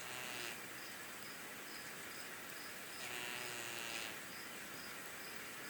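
Sleeping cat snoring with a buzzy, fart-like rasp: the end of one snore right at the start, then a full snore about a second long in the middle.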